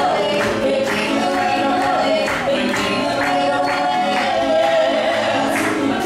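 Several voices singing a lively song together, holding long notes over instrumental backing with a regular beat.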